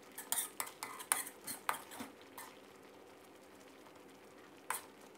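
Spatula scraping and clinking against a metal pan while stirring a thick chili paste: a quick run of strokes in the first two and a half seconds, then one more near the end, over a faint steady hum.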